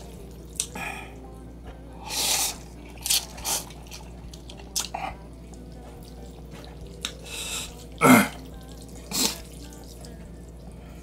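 A person slurping and chewing instant noodles in broth, in a string of short, separate wet slurps and mouth sounds. The loudest comes a little past two-thirds of the way through.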